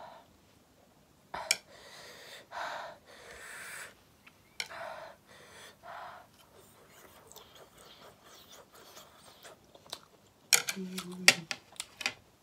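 Close-miked mouth sounds of someone eating spicy ramen. Several noisy breaths and slurps come in the first half. Near the end there is a quick cluster of sharp lip smacks and chewing clicks with a brief hummed "mm".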